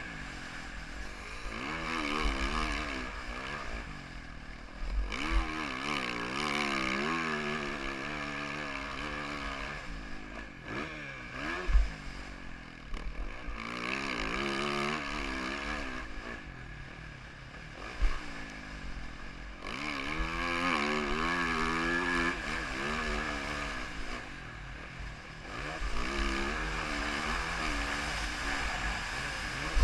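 2014 Yamaha YZ450F's single-cylinder four-stroke engine being ridden hard, its revs rising and falling again and again, with wind buffeting the microphone. A couple of sharp thumps stand out along the way.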